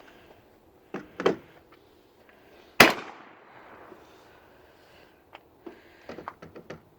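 A single semi-automatic shotgun blast about three seconds in, echoing briefly afterward. Smaller knocks come shortly before it, and a run of short clicks and knocks follows near the end, as the gun locks up after firing.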